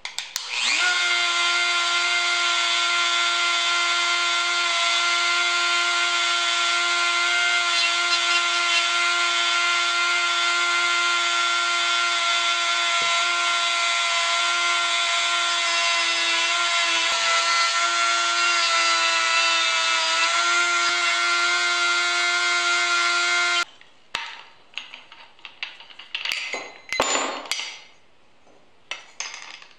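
Flex-shaft rotary carving tool spinning up to a steady high-pitched whine as its bit carves into a cedar figure, with its pitch sagging slightly under load. It cuts off suddenly and is followed by a few seconds of irregular short scraping noises.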